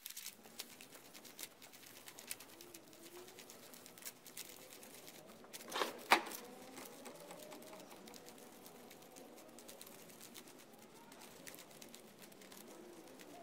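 Paper dollar bills counted by hand: faint, quick rustling and flicking of bills being peeled off a wad and laid down in piles, with two louder taps close together about six seconds in.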